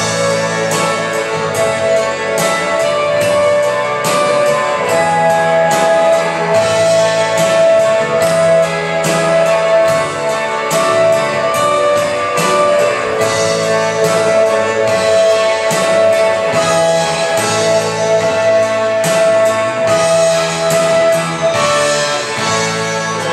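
Instrumental break of a recorded pop ballad played over a PA speaker: long held melody notes over a steady beat, with no singing.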